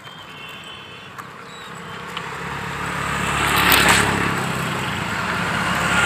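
A motor vehicle coming up and passing close on the road: engine and tyre noise grow louder from about two seconds in to a peak near four seconds, then build again near the end as more traffic comes by.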